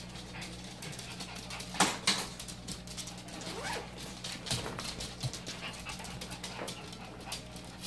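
Small dogs whimpering, with a few short whines, over the crinkle and rustle of a clear plastic zip bag being handled; the loudest moments are two sharp crackles about two seconds in.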